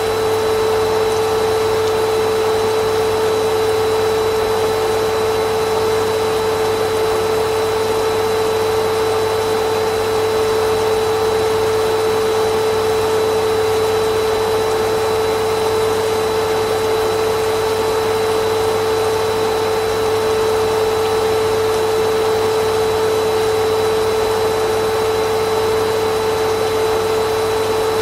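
Vacuum cleaner running steadily: a constant rushing whine with a strong fixed hum, unchanging throughout.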